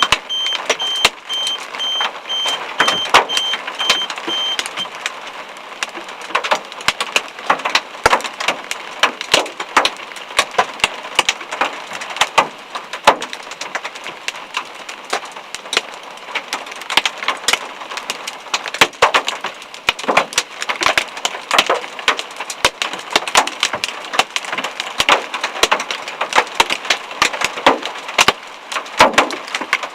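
Hailstones striking a hard surface in a dense, irregular clatter of sharp impacts over a steady hiss of falling ice.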